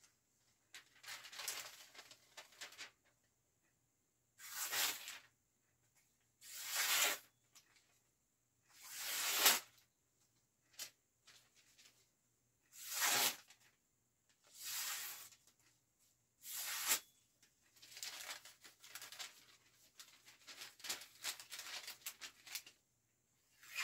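A freshly sharpened falchion-style sword blade slicing through sheets of paper in a series of about eight short, rustling, tearing cuts with pauses between them. Some cuts are ragged and crinkly rather than clean, in line with paper being hard to cut with a heavy machete-type blade.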